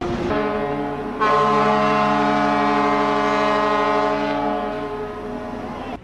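Cruise ship Imperial Majesty's horn sounding one long, steady blast of several tones together, like a chord. It swells louder about a second in and tapers off near the end.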